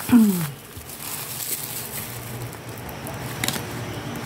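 A short falling vocal sound at the start, then quiet handling of paper photocards over a steady low hum, with a single click about three and a half seconds in.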